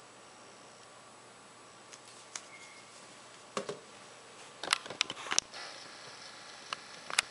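Small plastic clicks and taps of a Samsung Galaxy Ace phone and its battery being handled. They come scattered after about two seconds of faint hiss, with a quick cluster of several clicks a little past the middle and a couple more near the end.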